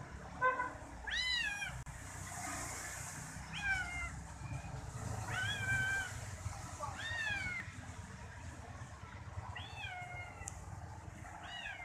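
Ginger kitten meowing repeatedly, about seven short rising-and-falling calls a second or two apart, the loudest about a second in. The owner takes these calls as the kitten asking to keep being massaged.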